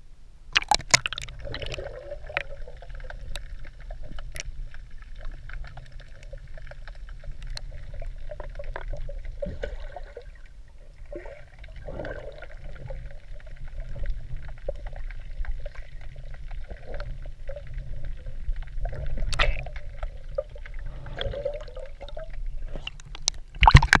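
Water splashing and gurgling in irregular bursts over a steady low rumble, with scattered small clicks.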